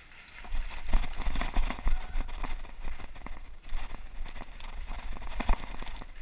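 Someone running, with quick irregular footfalls and rattling gear over a low rumble on the microphone.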